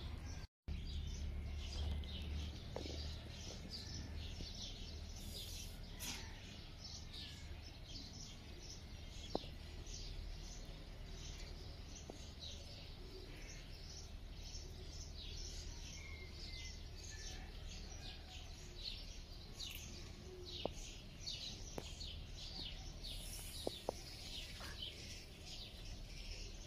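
Small birds chirping busily and continuously, many short high chirps overlapping, with a few isolated sharp clicks.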